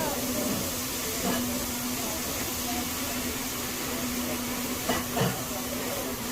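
Steady hiss of food sizzling on a hibachi griddle, over a steady low hum, with a few short clicks of utensils and faint background chatter.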